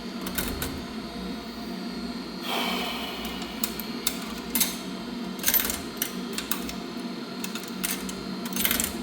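Quarters being fed into a coin-operated dryer's coin slot: scattered metallic clicks and, about two and a half seconds in, a coin rattling through the mechanism, over a steady hum of laundry machines. The machine is not accepting the quarters.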